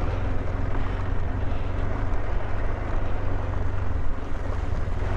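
KTM 390 Adventure's single-cylinder engine running steadily as the bike is ridden off-road over wet, muddy grass.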